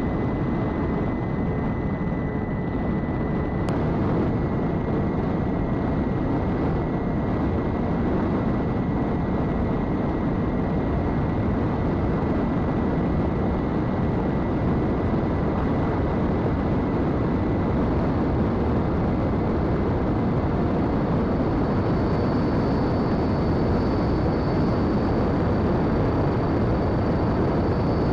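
Twin electric motors and propellers of an Eachine Airloader RC plane running steadily at cruise throttle in flight, under a heavy rush of wind. A thin steady whine sits over the wind and moves to a higher pitch about two-thirds of the way through.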